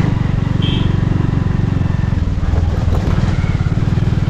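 Motorcycle engine running steadily while riding, its firing pulses dense and low, with a short high chirp about half a second in.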